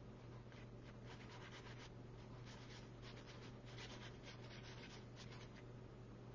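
Faint soft brushing and scratching: a small paintbrush worked in little circles over card to sweep loose gold flakes off a glued stamped flower. A steady low hum lies underneath.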